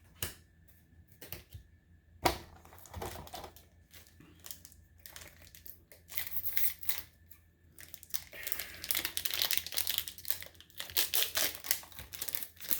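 Foil booster-pack wrapper being handled, torn open and crinkled, with a few scattered sharp clicks at first and dense crinkling over the last few seconds.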